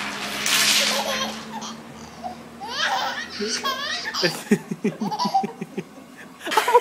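A toddler laughing: squealing giggles, then a fast run of belly-laugh pulses about five a second. Near the start, a short noisy rattle of a trowel scraping through loose pebbles.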